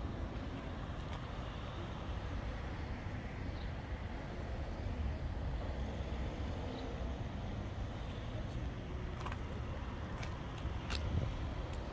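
Road traffic: a steady low rumble of cars moving on a busy road, with a few light clicks near the end.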